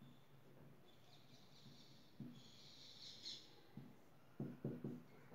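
Faint scratching squeak of a marker writing on a whiteboard, followed by a few soft short taps near the end.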